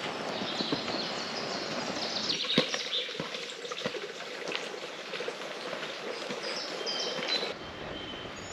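Woodland ambience with songbirds chirping and singing over a steady outdoor hiss, and a few footsteps near the middle.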